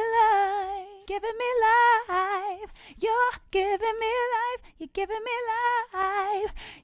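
An unaccompanied female lead vocal sings short melodic phrases with vibrato, heard through Logic Pro X's Studio VCA compressor at a 2.2:1 ratio with makeup gain applied. The compression sounds very smooth.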